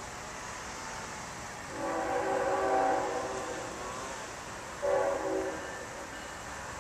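Air horn of an approaching CSX diesel locomotive, still some distance off, sounding a chord: one long blast starting about two seconds in, then a short blast about five seconds in.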